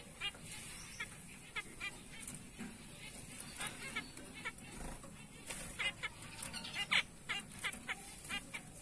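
A group of caged zebra finches calling: short, sharp calls from several birds, scattered throughout, coming thicker and louder about five to seven seconds in.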